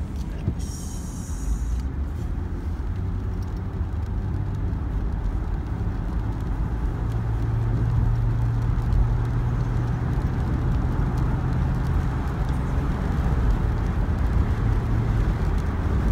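Steady car-interior driving noise: a low engine and tyre rumble with a steady low hum that grows stronger partway through, and a brief hiss about a second in.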